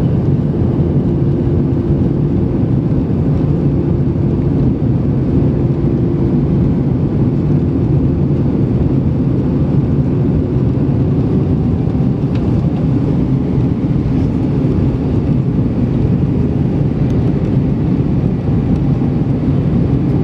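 Steady cabin noise of an Airbus A320-200 in flight, heard from inside the cabin: a low rumble of engines and airflow, with a steady hum that fades out about halfway through.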